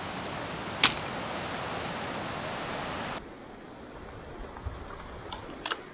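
A single sharp chop of a World War II machete striking a branch about a second in, over a steady hiss. After a cut the hiss drops away and a few faint clicks of brush and twigs being handled follow near the end.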